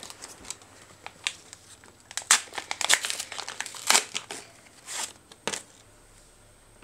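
A 2024 AFL Teamcoach trading-card pack wrapper being torn open and crinkled by hand: a run of sharp crackles and rips that dies away after about five and a half seconds.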